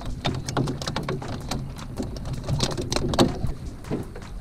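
Irregular splashing and dripping of water as a small flounder is pulled from the water, with a low steady hum underneath.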